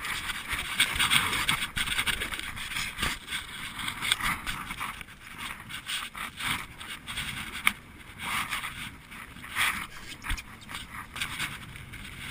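Water rushing and splashing along the wooden hull of a GP14 sailing dinghy under way in chop, with uneven loudness and several sharp knocks from the boat and its gear.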